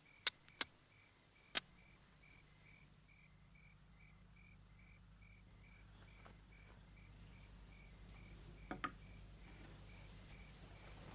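Faint cricket chirping in an even rhythm, about three chirps a second. A few sharp clicks in the first two seconds and another near the end.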